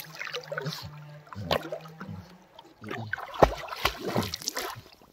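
Labrador swimming, its paddling legs splashing and churning the water, with a run of sharper splashes and a couple of low thumps about three seconds in.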